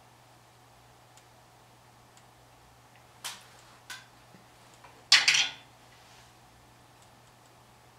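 Handling noise at a drum kit: two light clicks, then a short rattling clatter of sticks or hardware about five seconds in, over a low steady hum.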